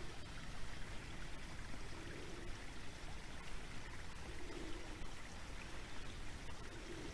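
Creek water running, a steady even rush, over a low rumble.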